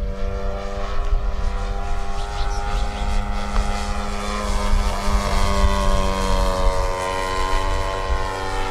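Radio-controlled scale Van's RV-4 model airplane flying overhead, its motor and propeller giving a steady droning buzz that shifts slightly in pitch midway, with a low rumble underneath.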